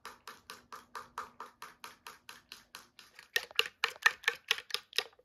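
Eggs being beaten with a spoon in a bowl: a steady run of quick taps of the spoon against the bowl, about four a second, growing louder and a little faster about three seconds in.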